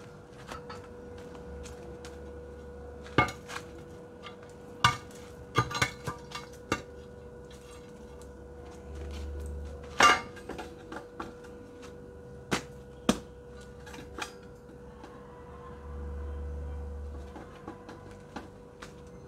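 Scattered metallic knocks and clanks as a wheel-rim coal stove on a metal stand is handled and shifted, with the loudest knock about ten seconds in. A faint steady hum runs underneath.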